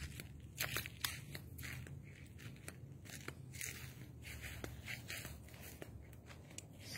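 Irregular crunching and rustling from someone walking through a garden, with footsteps on dry soil and leaf litter and leaves brushing past, over a faint low hum.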